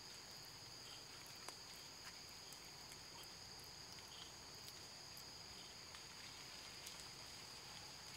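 Faint, steady high-pitched drone of forest insects, two pitches held without a break, with scattered faint ticks.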